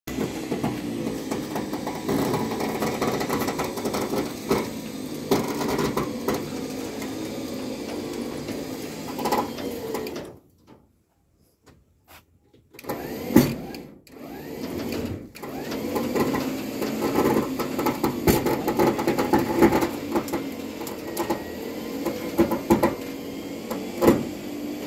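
Steady mechanical hum of a running motor, with scattered clicks and knocks. It cuts out almost completely for two to three seconds partway through, then resumes.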